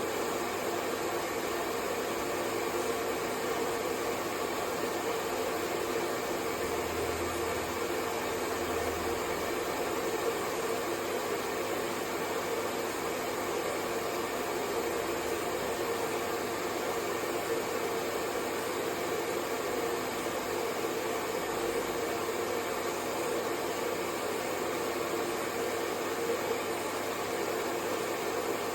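Hair dryer running steadily: an even, unchanging rush of air noise with a low hum in it.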